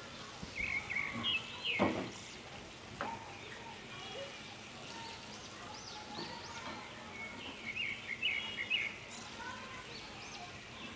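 Chicken pieces deep-frying in a pan of hot oil with a steady low sizzle, while a metal spatula scrapes and knocks against the pan as the pieces are turned over, loudest about two seconds in. Small birds chirp repeatedly in the background.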